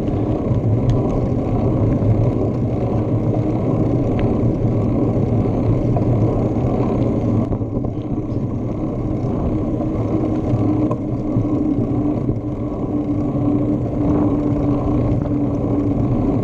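Wind rushing over a handlebar-mounted action camera's microphone as a bicycle rolls along the pavement, with a steady low tyre hum. It eases slightly about seven seconds in.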